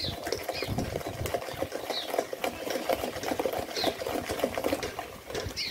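Wooden spoon beating margarine and sugar in a bowl: a rapid, steady run of soft knocks and scrapes as the mixture is creamed until smooth.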